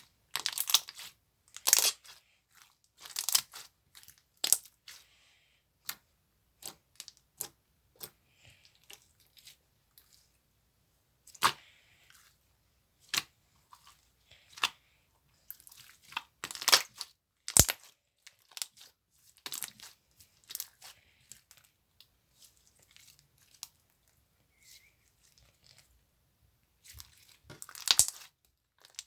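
Green slime being handled, squeezed and stretched by hand, giving irregular sharp crackles and pops with short pauses between them.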